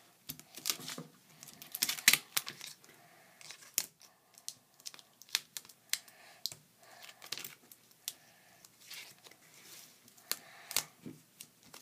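Adhesive tape being handled: clear tape and duct tape pulled, torn and pressed, giving irregular crackles, crinkles and short tearing rasps.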